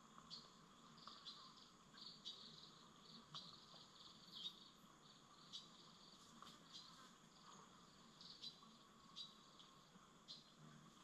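Very faint insect chirping, cricket-like: short high chirps recurring about once a second over a steady high hum.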